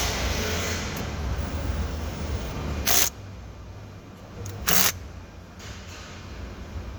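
Two short, sharp clicks about two seconds apart as plastic trim and steering-column parts are handled and fitted back together, over a low steady hum that drops away about three seconds in.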